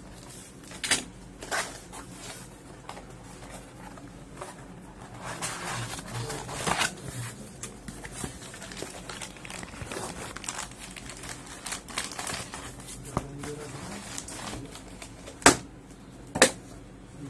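A taped cardboard shipping box being cut open with a utility knife and unpacked: scraping and tearing of tape and cardboard, broken by sharp clicks and knocks, the loudest two near the end.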